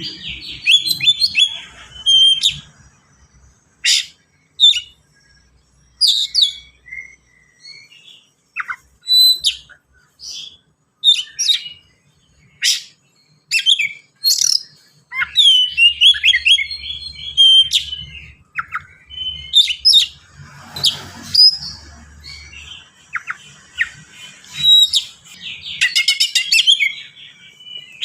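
Oriental magpie-robin (kacer) singing fast and densely: sharp whistled notes and chips, with quick slurred phrases and a rapid run of notes near the end.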